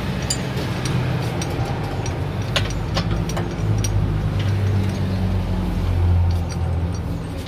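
Steady low mechanical hum with scattered light metallic clicks as a steering tie rod end is handled.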